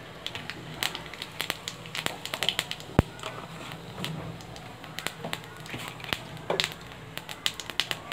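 Cumin seeds crackling and popping in hot ghee in a kadhai, a tadka: irregular small pops and clicks, with one sharper pop about three seconds in.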